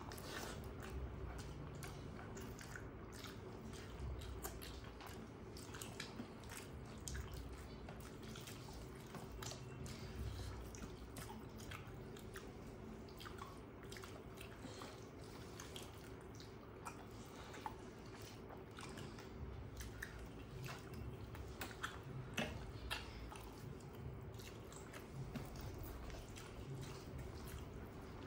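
Two people chewing mouthfuls of rice and curry eaten by hand, close to the microphone: a continuous run of soft, irregular chewing clicks and wet mouth sounds, with small squelches of fingers working rice on steel plates. A faint steady hum runs underneath.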